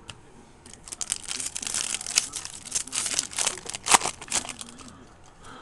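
Wrapper of a baseball card pack being torn open and crinkled, a dense run of crackling from about a second in until near the end, with one sharp snap a little before the end.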